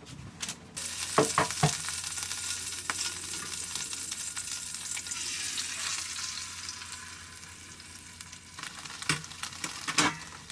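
Egg sizzling in a hot frying pan while it is stirred, with sharp clacks of a utensil against the pan a second or so in and again near the end.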